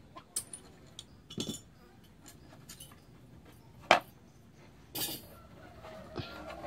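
Scattered light knocks and clinks, about five separate taps spread a second or so apart, with no steady sawing rhythm: objects being handled and set down.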